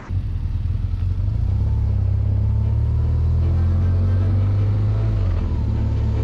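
Motorcycle engine running at low speed as the bike rides off, heard from a camera on the bike, its note easing about five seconds in.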